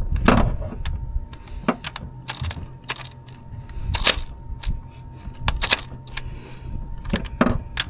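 Scattered sharp metal clicks and clinks, some with a brief ring, from a socket wrench and extension working the bolt of a camshaft position sensor in the engine bay.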